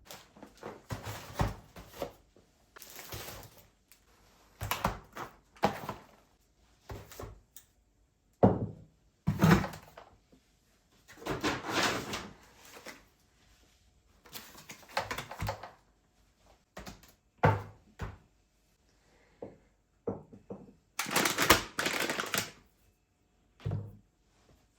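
Household handling sounds: a dozen or so irregular thunks and knocks of objects being picked up and set down, with short rustling or scraping between them and a longer stretch of it near the end.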